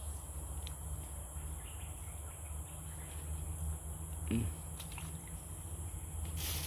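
Steady high-pitched insect chorus over a low rumble, with one short low sound a little past four seconds in.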